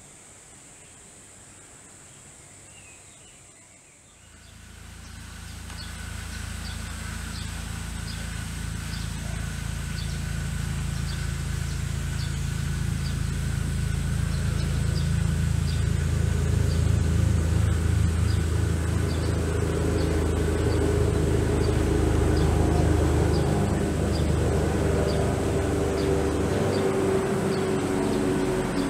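A steady low mechanical drone with a pitched hum starts about four seconds in and grows gradually louder. Faint high ticks repeat at an even pace above it.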